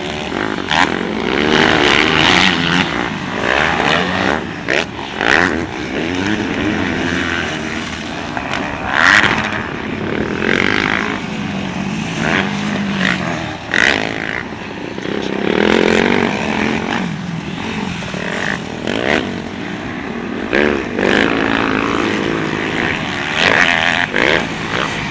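Motocross dirt bike engines revving hard and easing off again and again, the pitch rising and falling as the bikes climb and jump the dirt track. Scattered short knocks cut in through the engine noise.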